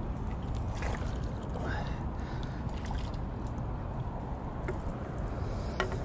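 Steady low rumble of wind and light rain on the microphone, with scattered faint ticks and one sharper click near the end.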